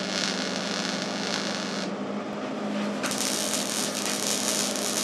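MIG welder arcing on thin sheet steel, crackling and hissing in two stitch-weld runs with a pause of about a second between them, over a steady low hum. The welds are laid in short, slow stitches so as not to blow holes in the thin metal.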